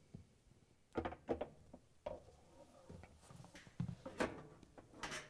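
Faint scattered knocks and scrapes of a washer suspension rod being fed up through the plastic tub and hooked onto the frame, a few light knocks spread over several seconds.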